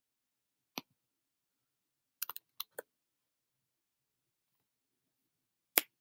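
A few sharp clicks of a computer mouse and keyboard: one about a second in, a quick run of four or five a little past two seconds, and a louder single click near the end.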